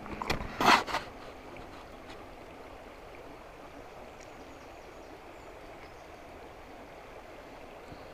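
Shallow creek water running steadily over a gravel bed. Near the start comes a brief, loud rustle with a few knocks.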